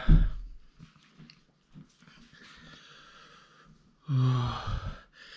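A man moaning and breathing hard from the burn of a Carolina Reaper chilli. There is a sharp breath with a low thump at the start, quieter hissing breaths, then a loud drawn-out moan about four seconds in.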